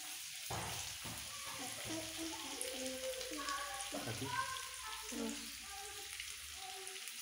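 Steady sizzle of pieces of satay meat frying in oil in a pan while sweet soy sauce is poured in.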